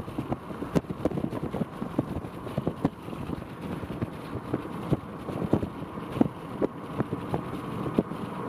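Gusty wind rushing over the microphone, with many irregular sharp taps scattered through it.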